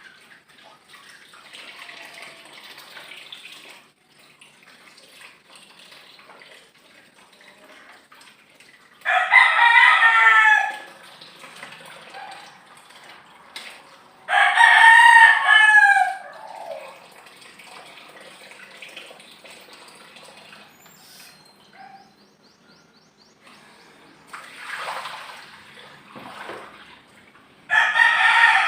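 A rooster crowing three times, each crow about two seconds long and much louder than the faint water and handling noise between them.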